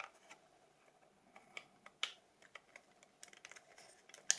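Faint, scattered light clicks and taps of the phone and its battery parts being handled, about a dozen at uneven intervals, a little closer together near the end.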